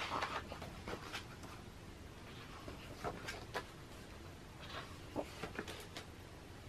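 Pages of a large hardcover photobook being turned by hand, several times: short paper swishes and rustles with small sharp clicks and crackles.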